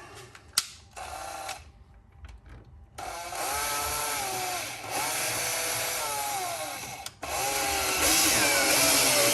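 Electric screwdriver driving a screw: a short burst, then two long runs of the motor whining and wavering in pitch, split by a brief pause, the second run louder.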